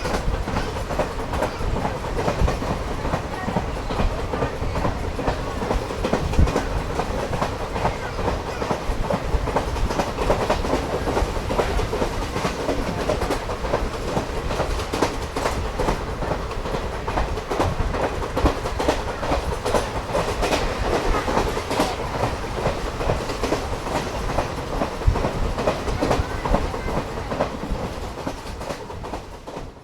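Express train passing at speed, its wheels clattering rapidly over rail joints under a steady rush of noise. The sound stops abruptly at the end.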